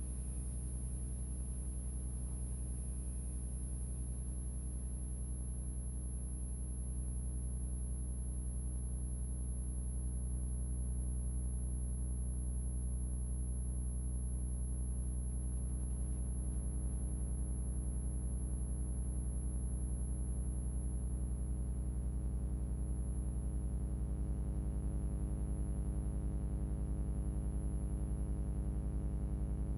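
Live experimental electronic drone music: a steady mass of sustained low tones, heaviest in the deep bass, with a fast flutter running through the low end. It swells slightly about ten seconds in.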